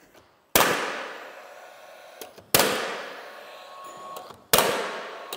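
Nail gun firing three nails, about two seconds apart, into a cedar rail board. Each shot is a sharp bang that rings out for about a second.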